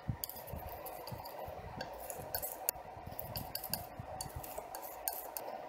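Oil paint being mixed on a palette: small, irregular clicks and taps of the mixing tool against the palette surface, over a faint steady hum.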